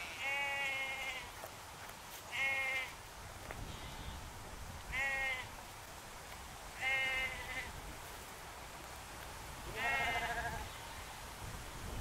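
Sheep bleating: five short, quavering bleats about two seconds apart.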